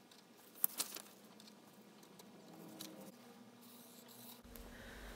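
Faint handling sounds of a marker, ruler and paper sheet being worked on a bench, with two sharp clicks close together a little under a second in.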